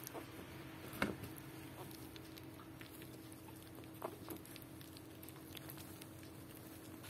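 Newborn puppies squeaking faintly and shuffling against their mother, with a short louder squeak about a second in and another rising squeak about four seconds in.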